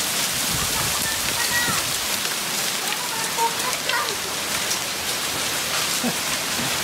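Small hailstones and rain pelting down on a wooden deck and lawn in a steady, dense patter full of small sharp ticks.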